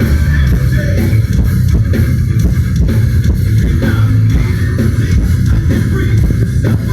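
Progressive metal band playing live: drum kit, electric guitar and bass guitar, loud and dense, heavy in the low end.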